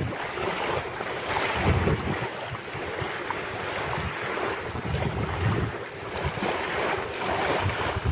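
Sea waves washing ashore in surges of noise, with wind buffeting the microphone.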